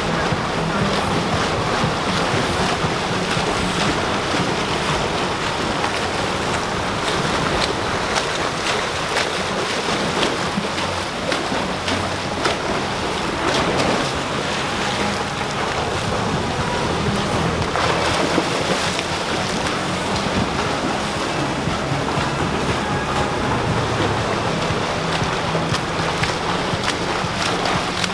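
Swimmers splashing through freestyle laps in an indoor pool: a steady wash of churning water noise.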